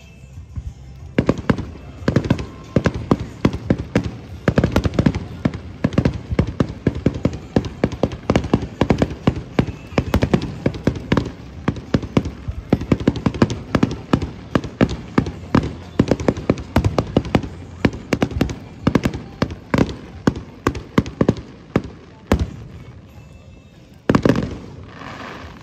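Aerial fireworks shells bursting in a rapid barrage, many sharp bangs a second, starting about a second in and running until shortly before the end. Near the end comes one single loud burst that rings on.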